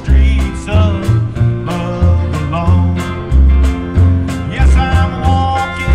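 Live rockabilly band playing a country-style song: a steady beat of drums and bass under guitar, with a singer's voice holding a long note near the end.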